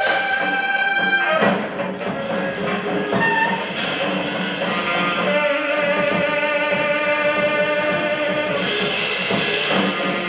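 Live free-improvised trio of saxophone, bowed double bass and drum kit. The saxophone holds long notes over drum and cymbal strikes.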